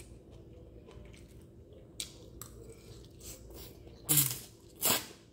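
Spaghetti slurped into the mouth in two short, loud slurps near the end, with a couple of faint clicks before.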